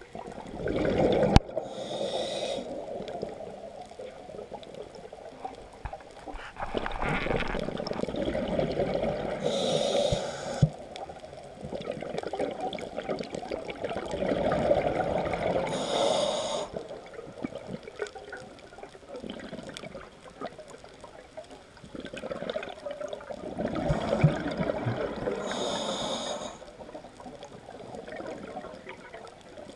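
Scuba diver breathing through a regulator underwater: long bubbling exhalations, each followed by a short hissing inhalation, about four breath cycles.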